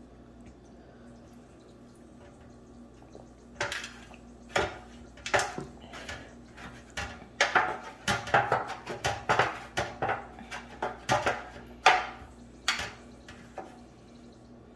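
Utensils clinking and scraping against dishes and pans: a run of sharp knocks and clinks starting a few seconds in and stopping shortly before the end, thickest toward the middle.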